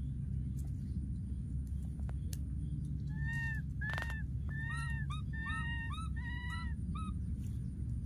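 Baby monkey giving a quick run of about ten short, high, arched squeaks, starting about three seconds in and lasting about four seconds, over a steady low background rumble.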